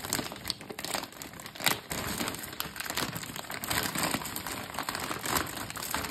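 Paper and plastic parcel packaging crinkling and rustling as it is unwrapped by hand, in an irregular run of crackles, the loudest about a second and a half in.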